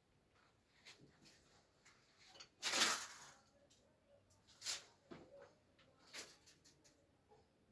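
Scattered handling noises: a few short knocks and scrapes, the loudest a half-second scrape about three seconds in.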